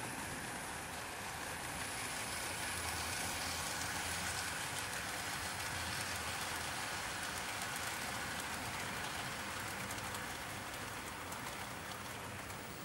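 OO gauge model trains running on the layout: a steady rushing clatter of metal wheels on the rails with light clicking, louder in the middle and easing near the end.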